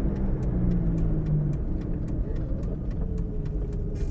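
Dacia Sport's engine running as heard inside the cabin while driving. Its steady note eases off about a second and a half in, and a fainter whine then falls slowly in pitch as the car runs on.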